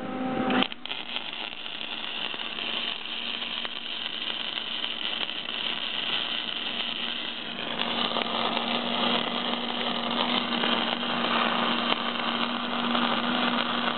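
Electric arc welding: the arc is struck just under a second in and runs as a continuous crackling hiss, with a steady low hum under it. The crackle grows stronger about halfway through.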